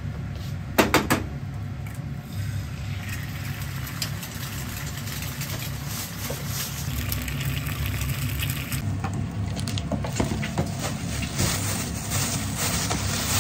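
An egg frying in a pan on a gas stove, sizzling over a steady low hum, with two sharp clicks about a second in. Near the end comes the crinkling of a plastic bag being handled.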